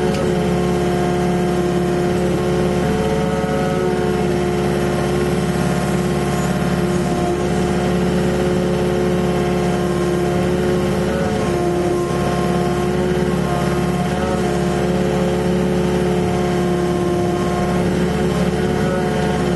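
Volvo EC55C mini excavator's diesel engine running steadily, its pitch shifting slightly now and then.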